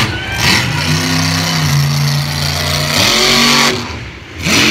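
Monster truck's engine revving hard, its pitch climbing, dropping off briefly about four seconds in, then climbing again as the throttle is reopened.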